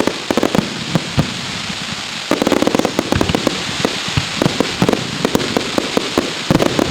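Aerial fireworks going off in rapid succession: many sharp bangs and pops overlapping over a steady hiss. A dense volley starts about two seconds in, and another comes near the end.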